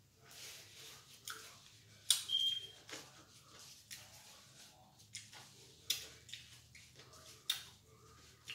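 Soft eating and handling sounds: scattered clicks and mouth smacks while chewing, with the rustle of a paper napkin being rubbed between the hands, and one brief high squeak a little after two seconds in.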